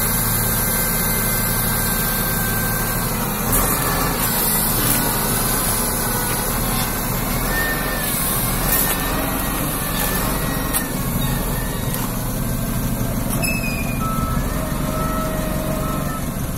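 Wheel loader's diesel engine running steadily while it loads sand, with its reversing alarm beeping several times near the end.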